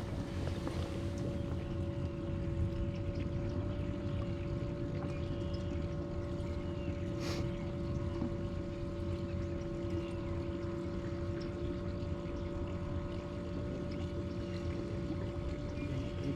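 Small electric motor on a bass boat humming steadily at a constant pitch, over a low rumble of wind and water.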